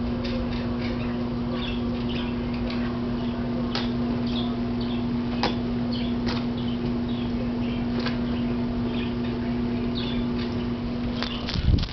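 A steady electrical hum with faint bird-like chirps scattered throughout and a few light clicks; the hum cuts off shortly before the end, just as a louder rumble of movement begins.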